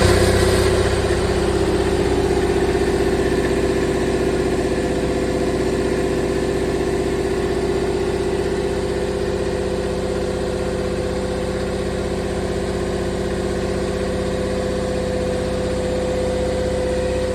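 A boat's diesel generator running steadily just after starting, its speed settling in the first couple of seconds. It has just been restarted after a filter change, with the air bled from its fuel system.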